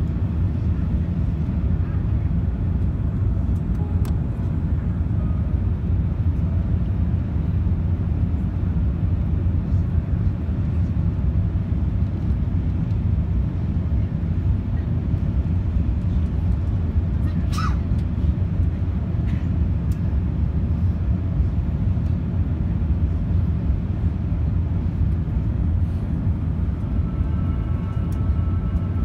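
Steady low rumble of airflow and engines inside the cabin of an Airbus A380-800 on approach with its flaps extended. A short higher-pitched sound cuts in briefly about two-thirds of the way through.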